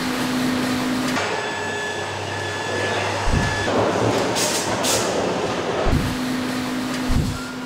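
Factory shop-floor ambience: a steady machine hum and air noise that change abruptly a few times, with several low thumps.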